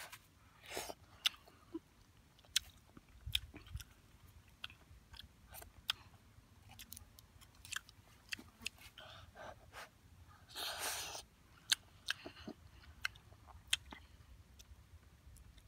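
A boy chewing and eating with stick chopsticks from a clay bowl: irregular short clicks and smacks throughout, with one longer noisy sound of about half a second around two-thirds of the way through.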